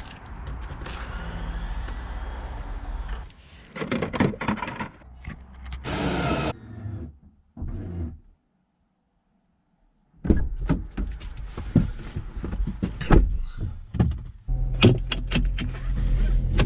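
Knocks, thuds and rustling of someone working around a car and getting into the driver's seat, with a break in the middle. A steady low hum sets in near the end.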